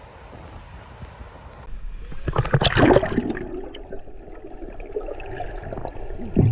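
Wind noise on the microphone, then after a cut, water splashing and sloshing, loudest a little over two seconds in.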